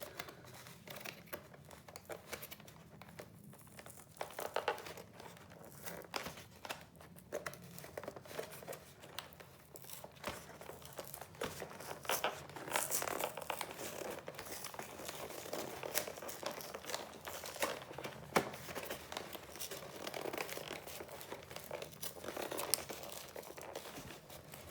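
Plastic shrink-wrap being crinkled and torn off a trading-card collection box by hand: irregular rustling with many short, sharp crackles, getting busier and louder about halfway through.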